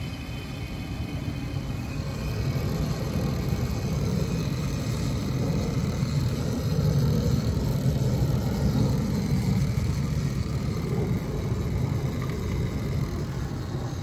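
Rooftop gas heating unit running: a steady low rumble of the lit burners and the draft inducer motor, swelling slightly in the middle.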